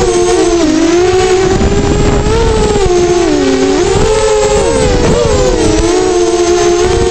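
Flywoo Explorer LR quadcopter's motors and propellers whining, the pitch sliding down and back up several times as the throttle changes during low flight.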